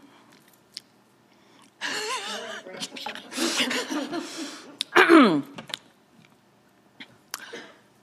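A woman's breathy giggling begins about two seconds in, then a short, louder laugh falls in pitch around five seconds in.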